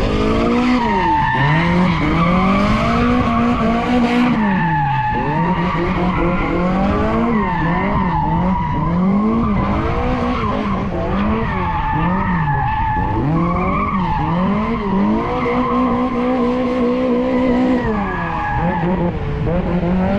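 1980s Toyota Corolla engine run hard through a tight motorkhana course: revs climbing and dropping again and again, held steady for a couple of seconds near the end, with the tyres skidding.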